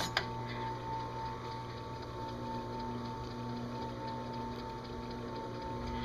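Drill press running steadily with a faint whine, idling between engine-turning passes. The hiss of the abrasive pad on the aluminum dash panel cuts off with a click just after the start, while the panel is moved to the next spot.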